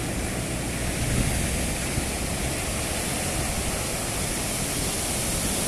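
Sea surf breaking and washing up a sandy beach: a steady rush of waves with a deep low rumble underneath.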